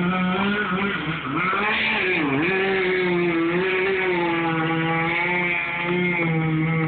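Skid-steer loader engine running steadily at high revs, its pitch dipping briefly about one and two seconds in.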